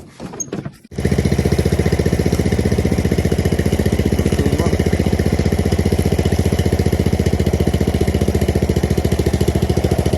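A vehicle's engine comes in abruptly about a second in and runs steadily at idle with a fast, even pulse, taking up the strain of a tow-strap pull.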